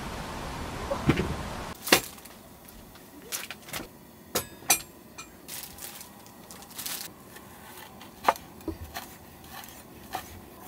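A steady hiss of background noise that cuts off abruptly about two seconds in with a sharp click, followed by scattered light clicks and knocks.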